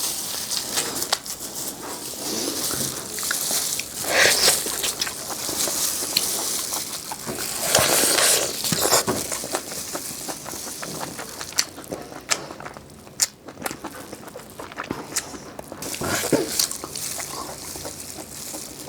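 Close-miked chewing and crunching of crispy food, with irregular crackles and sharp clicks. It is louder in stretches, with a quieter spell of scattered clicks past the middle.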